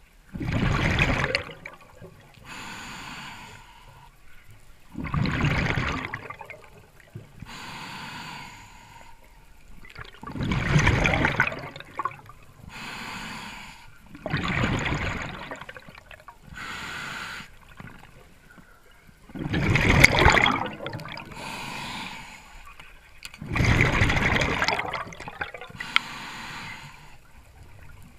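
Scuba diver breathing through a regulator underwater: six loud bursts of exhaled bubbles about every four to five seconds, each followed by a quieter hiss of inhaling.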